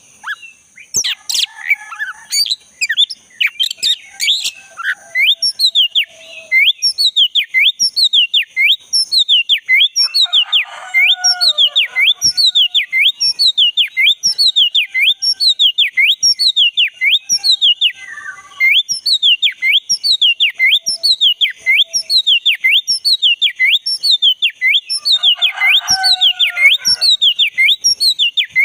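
Black-chested Oriental magpie-robin (kacer dada hitam) singing hard: a rapid run of sweeping whistled notes, about two a second, broken by bursts of lower chattering. A steady high-pitched drone runs underneath.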